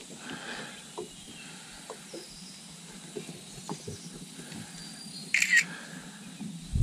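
Smartphone camera shutter click about five and a half seconds in, over small scattered handling clicks. A low thump comes right at the end.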